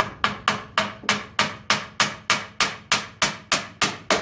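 Hammer driving nails into a pine board in a fast, even run of blows, about three a second, each with a short ring.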